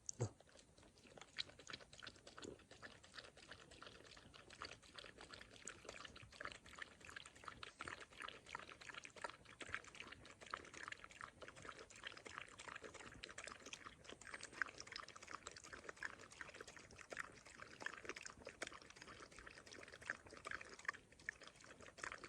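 A dog lapping water with quick, faint, splashy licks that go on without a break.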